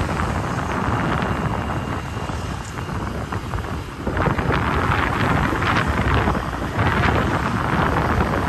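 Wind buffeting the microphone, mixed with vehicle and road noise from riding in an open vehicle. It gets louder about four seconds in.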